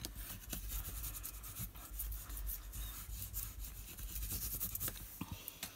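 A bone folder rubbed back and forth over paper in repeated strokes, smoothing freshly glued designer paper flat onto a cardstock mat.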